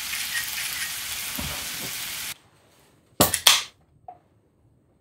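Sukiyaki of beef and leeks sizzling in a skillet with a steady hiss that cuts off about two seconds in. A little later a beer can is cracked open: two sharp pops in quick succession from the pull tab, then a small click.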